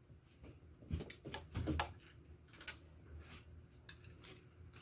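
Cutlery and dishes clinking, with scattered light clicks and a few soft knocks between one and two seconds in.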